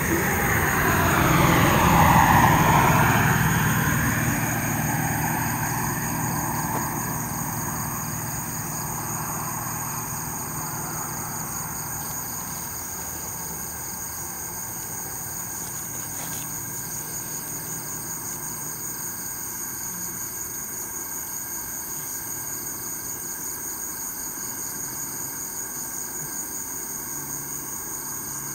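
A vehicle passing by, loudest about two seconds in and then fading away over the next few seconds. Under it a steady high chorus of night insects chirps.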